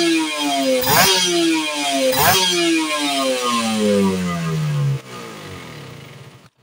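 Kawasaki Ninja 150 single-cylinder two-stroke engine through a full stainless racing exhaust, revved in quick throttle blips with the revs falling back after each. It has a dry exhaust note. After the last blip the revs die away slowly, and the engine quietens about five seconds in.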